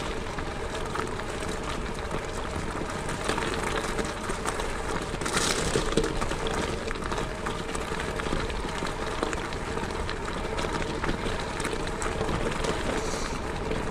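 Steady road and wind noise of a bicycle ride, picked up by a GoPro Hero 7 Black action camera, with a brief louder rush about five seconds in.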